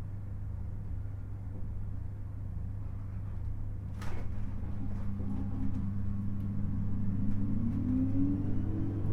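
JR 719 series electric train pulling away from a stop, heard from inside the car: a steady low hum at first, a sharp clunk about four seconds in, then several whining tones that climb in pitch together as the train starts to accelerate. This unit is singled out as a noisy car for its jet-like whine.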